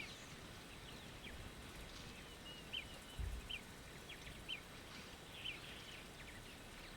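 Small birds chirping faintly, many short scattered calls, over a quiet outdoor background, with one dull low thud about three seconds in.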